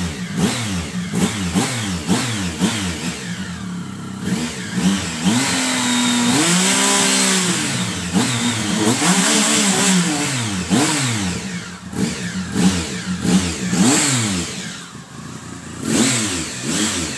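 2011 Triumph Speed Triple 1050's inline three-cylinder engine revved through its stock exhaust in a series of quick throttle blips, with one longer rise held about six to eight seconds in. The exhaust note is a low rumble.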